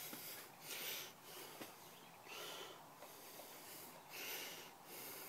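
A person breathing close to the microphone: about four faint, soft breaths, evenly spaced every second and a half to two seconds.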